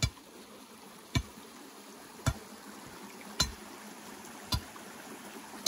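Steel digging bar driven down into rocky soil: six sharp strikes, evenly spaced about a second apart. A creek runs steadily underneath.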